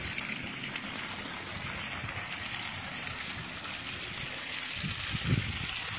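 Water running and trickling steadily over the rim of a well filled to the brim by rising groundwater, with a brief low bump about five seconds in.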